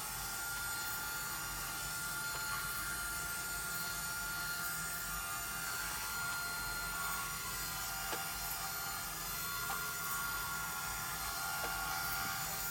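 iRobot Roomba 971 robot vacuum running steadily, a whir of its motor and brushes with a thin high whine, and a few faint ticks in the second half.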